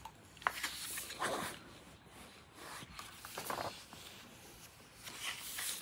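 Paper rustling as a hand brushes across and handles the pages of a large hardcover art book, a few soft swishes.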